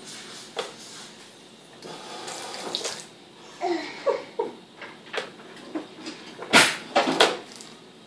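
A refrigerator being handled: scattered clicks and knocks, with a short rush like running water about two and a half seconds in. Two loud sharp knocks come near the end.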